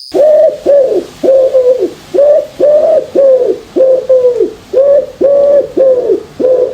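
A bird calling in a fast series of loud, short, pitched calls, about two a second, each a steady note that drops away at its end.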